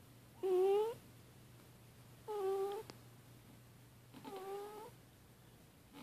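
A sleeping cat making three short, pitched, slightly rising cries in her sleep, about two seconds apart, each a little fainter than the last; her owner takes these sounds for snoring or a bad dream.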